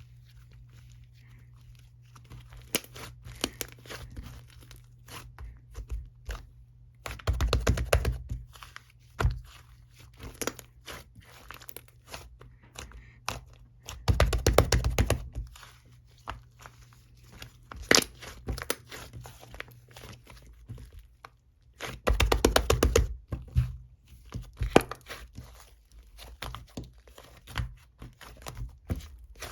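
Crinkling, crunching noises in three louder bursts of a second or two, about seven seconds apart, with scattered quieter clicks and rustles between them.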